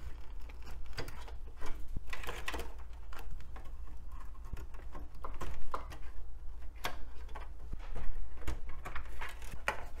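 Ribbon cables and their plastic connectors being unplugged and pulled out from inside a computer case: irregular clicks, rustling and light knocks.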